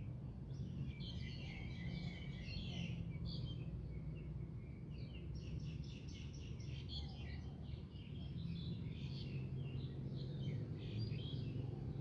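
Small birds twittering in the trees in quick runs of short, high chirps, with brief pauses between runs, over a steady low background hum.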